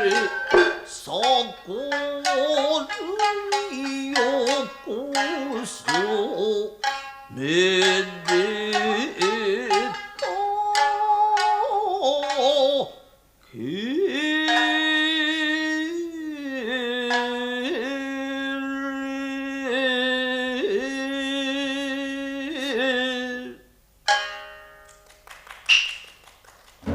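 Nagauta music: shamisen plucking under a singer's gliding vocal line, then, after a brief break about halfway, a long held sung phrase with a wavering pitch over sparse shamisen notes.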